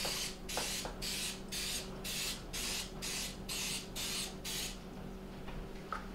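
Aerosol coconut-oil cooking spray hissing in a string of short bursts, about two a second, one quick spray into each muffin cup; the spraying stops about four and a half seconds in.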